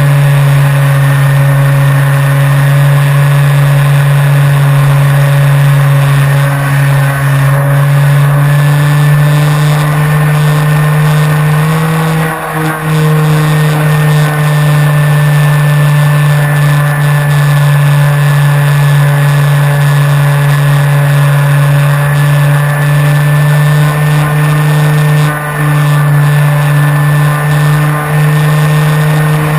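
Electric motor and propeller of a Flyzone Switch RC plane in flight, heard from a camera mounted on the plane: a loud, steady drone at a constant pitch, with a brief throttle change about twelve seconds in and a few short dips later. Airflow noise runs under it.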